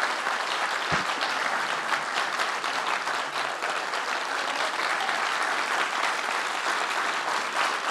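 A large audience applauding steadily after a talk, with a single low thump about a second in.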